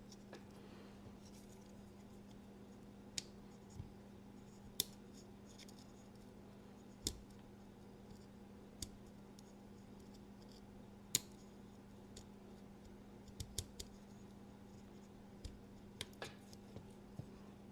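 Faint, scattered metallic clicks and scrapes of a small tool prying at the handle of a Demko AD-20.5 folding knife during disassembly, about a dozen sharp ticks, over a low steady hum.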